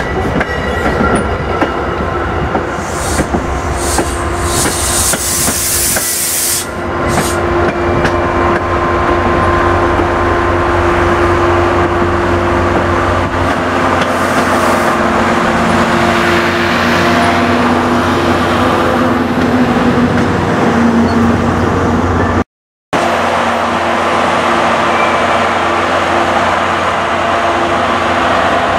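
A diesel push-pull train of Shoreliner coaches rolling slowly past close by, wheels and undercarriage rattling over the track, then the steady drone of the Brookville BL20GH diesel locomotive's engine as it passes.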